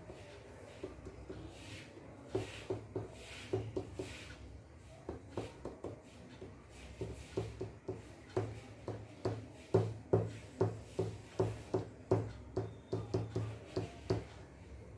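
Correction-pen (whitener) tip tapped repeatedly on paper, dabbing white dots: a series of short taps that settles into a steady two to three a second from about eight seconds in.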